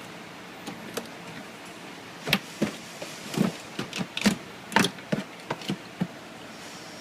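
Metal hand tools and parts clinking and knocking: about a dozen sharp, irregular knocks over a few seconds, over a steady low hiss.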